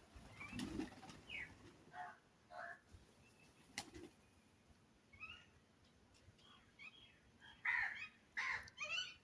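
Birds calling in short, separate calls, with a run of louder calls near the end.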